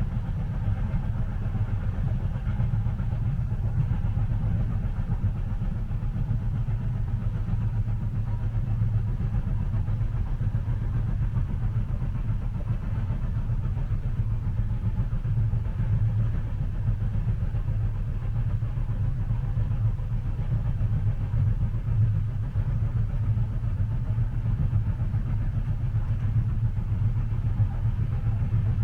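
Steady low rumble of a train heard from inside a passenger cabin, an even drone without distinct events.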